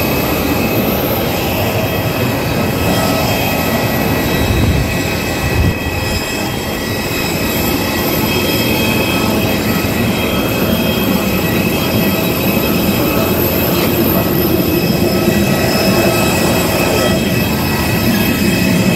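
Jet aircraft running close by: a loud, steady rushing noise with several high whining tones held constant throughout.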